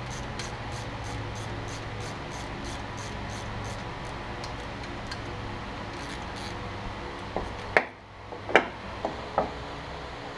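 A hand tool clicking steadily at about four ticks a second as a tap or ratchet is worked to clean up the threads of bolt holes in a cast iron tractor engine block; the clicking thins out, then five sharp metal clinks come in the last few seconds.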